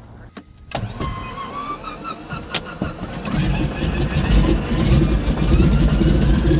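De Havilland Beaver floatplane's engine being started, heard from inside the cabin: a click, a wavering starter whine, then about three seconds in the engine catches and runs with a loud low rumble.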